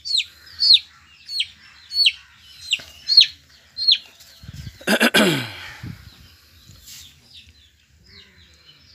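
Young chick peeping repeatedly in high, falling whistles, about seven peeps in the first four seconds, then fainter peeps. About five seconds in, a louder, lower sound with a falling pitch.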